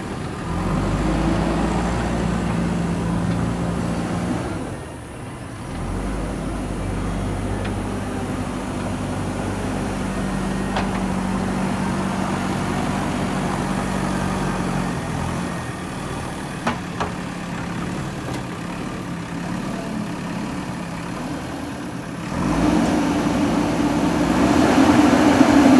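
JCB 3DX backhoe loader's diesel engine running steadily under work, dipping briefly about five seconds in. Near the end it revs up, louder and higher in pitch.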